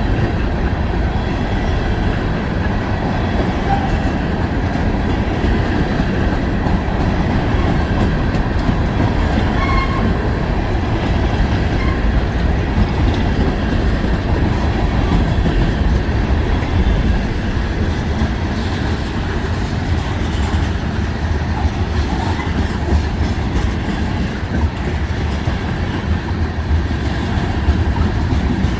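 Freight cars of a long mixed freight train rolling past, a steady loud rumble of steel wheels on rail, with a few brief faint wheel squeals.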